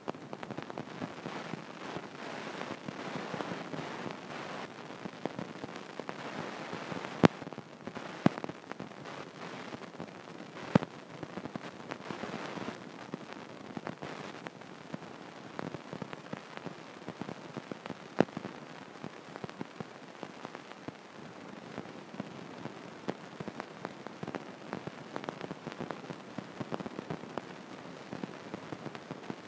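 Stylus tapping and scratching on an iPad's glass screen while drawing, a steady crackly noise with many small clicks and a handful of sharper taps between about 7 and 18 seconds in.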